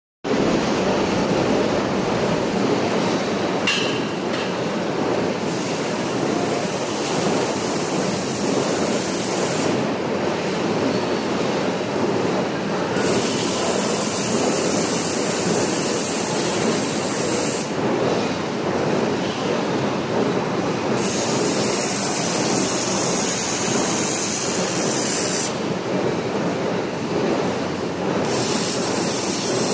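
Steady, dense machinery noise with no clear pitch, as from running industrial equipment.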